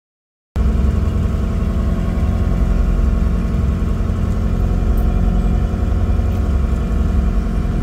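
A sailing yacht's inboard engine running steadily under way, a low, even drone that cuts in about half a second in.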